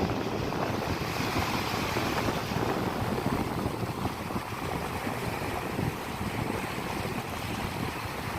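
Sea surf washing steadily onto a beach, a continuous rushing noise with no single wave standing out.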